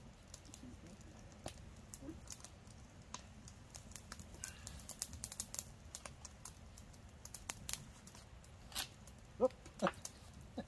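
Scattered light, sharp clicks and crackles at irregular intervals, bunched in small clusters about halfway through.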